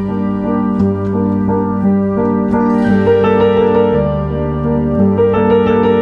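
Background music: a piano or electric keyboard playing a slow, steady accompaniment.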